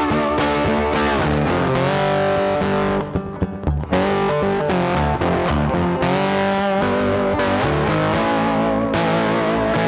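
Background music led by distorted electric guitar.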